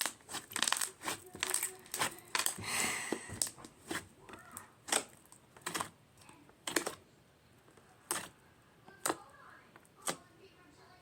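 Crunchy slime being squeezed and pressed by hand, crackling and popping. A dense run of crackles for the first three seconds or so, then single sharp pops about once a second.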